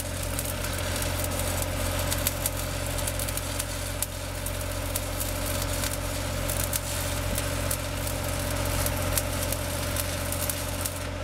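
Stick (shielded metal arc) welding arc crackling and spitting steadily on a steel pipe joint, over a steady low machine hum. The crackle cuts off suddenly near the end as the arc is broken.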